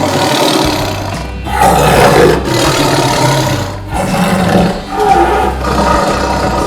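Tiger roaring repeatedly, loud, with short breaks between roars, over background music.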